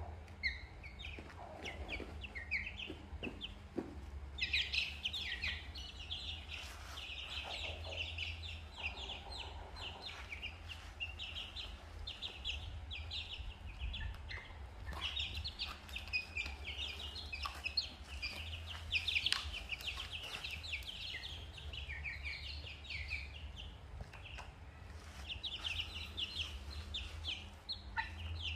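Young chicks and ducklings peeping: a dense flock chorus of short, high chirps, sparse for the first few seconds and then thick and continuous. A steady low hum runs underneath.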